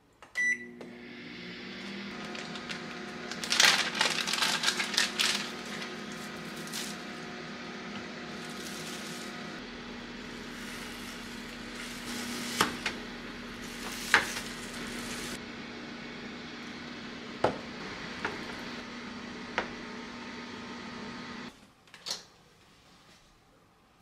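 Microwave oven beeping as it is started, then running with a steady hum that stops suddenly near the end, followed by a click. Scattered clinks and clatter of kitchenware sound over the hum, with a burst of them a few seconds in.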